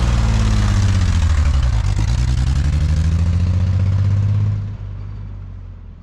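Boat engine running, its pitch sinking and rising again, then fading out about four and a half seconds in.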